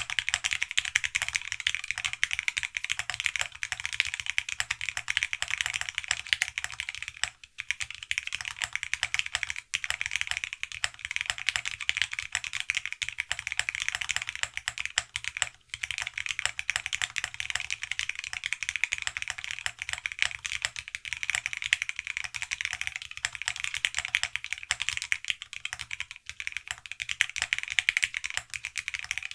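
Typing on a mechanical keyboard with NovelKeys x Alexotos Granite linear switches (milky nylon housings, POM stems) in a TGR Tomo: a dense, steady stream of keystroke clacks that stops briefly twice, about seven and fifteen seconds in.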